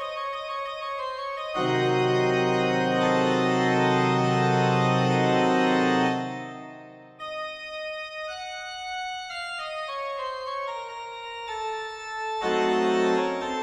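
Classical organ music: a loud held chord that dies away about six seconds in, then a quieter run of moving notes, and another loud chord near the end.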